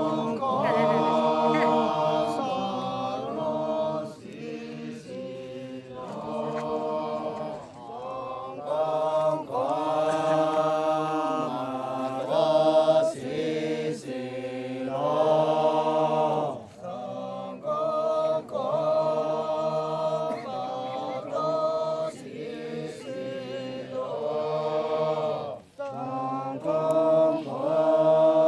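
Makury Naga men's choir singing unaccompanied in three-part harmony, in sung phrases of a few seconds each with short pauses between them.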